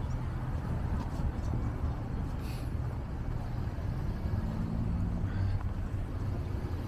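Street traffic: a motor vehicle's engine hum over a steady low rumble, a little stronger about two-thirds of the way through.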